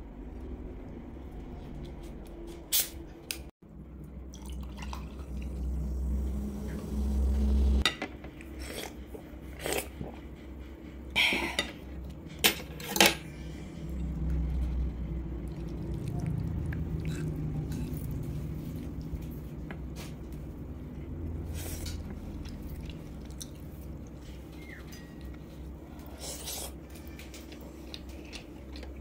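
Metal fork clinking and scraping against a ceramic bowl as food is stirred and lifted: scattered sharp clicks, the loudest few near the middle, over a low handling rumble.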